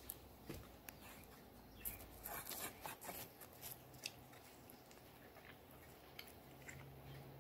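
Faint crackling and crinkling with a few small clicks as a wrapped snack is handled and bitten, most of it in a short spell about two to three seconds in.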